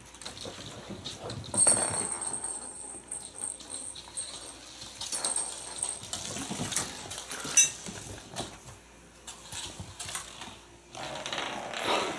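Kittens playing with toys on a wooden floor: scattered light clicks, taps and rattles of balls and paws. A thin high tone comes and goes in the first half, and a louder scuffle starts near the end.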